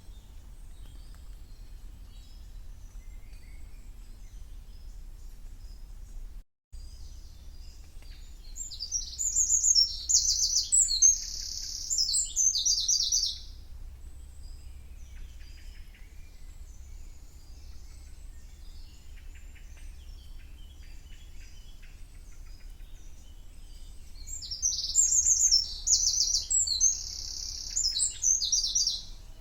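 A songbird sings two long, loud phrases of fast, high trills and notes, each lasting about five seconds, the second following about fifteen seconds after the first. Fainter bird calls and a steady low rumble run underneath.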